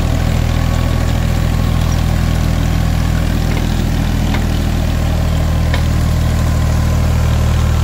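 Automatic clay brick making machine running, its engine giving a steady low hum, with a few light clicks from the working machinery in the middle.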